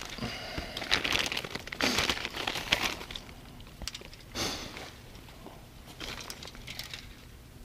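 Crinkling and rustling of plastic with small clicks as fishing tackle is handled by hand, busiest in the first three seconds and fainter after.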